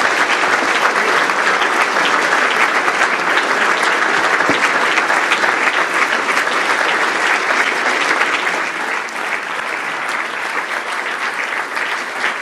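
Seated audience applauding steadily, a dense patter of many hands clapping that eases off slightly in the last few seconds.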